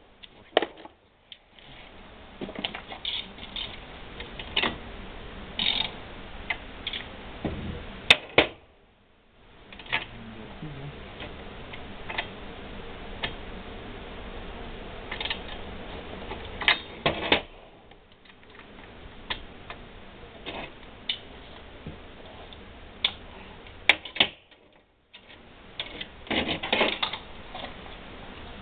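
Hand tools and metal parts clicking and knocking as an engine is fitted into a Piaggio Ciao moped's frame: scattered, irregular sharp clicks with a few short pauses.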